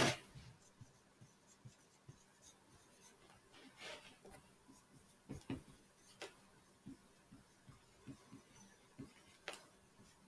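Faint pen-on-paper writing: light scratches and taps, with a few sharper clicks now and then.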